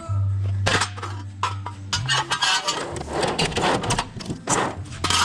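Background music with a steady low bass note. From about two seconds in come sharp clinks and rough scraping bursts.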